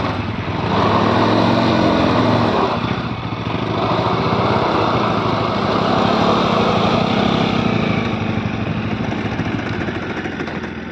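Bajaj Pulsar NS motorcycle's single-cylinder engine revved in swells for the first few seconds, then running more steadily.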